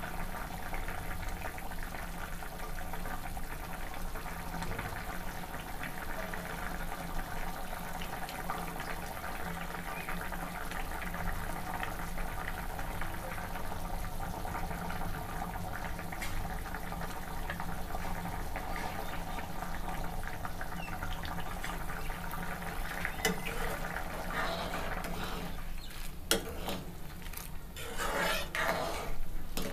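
Cucumber curry with added water bubbling steadily in a metal kadai on a gas stove as it comes up to the boil. Near the end a spoon stirs it, clinking and scraping against the pan.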